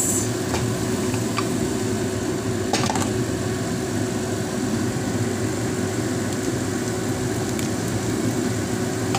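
Diced zucchini, tomato and onion frying in a nonstick pan: a steady sizzle with a low hum under it and a few light knocks of a wooden spoon.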